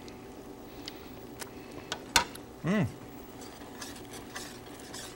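Cooking utensils clicking and scraping against pans as sauces are stirred on the stove, with a sharp tap of metal on a pan about two seconds in. A short vocal sound from a man follows just after.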